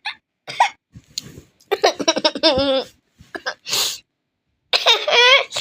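High-pitched laughing sound effect, cackling in separate bursts with a wobbling pitch. A short breathy puff comes between the two longest peals.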